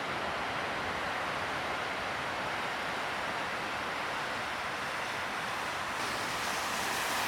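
Steady rush of ocean surf breaking on the reef, a continuous noise that swells slightly near the end.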